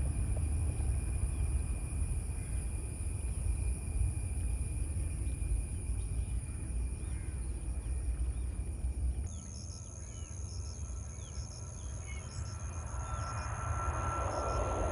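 Jet airliner taking off: a low, steady engine rumble during the takeoff run. After a sudden cut about nine seconds in it is quieter, with an insect chirping in pairs about once a second, and the jet engine noise swells again near the end as the plane climbs out.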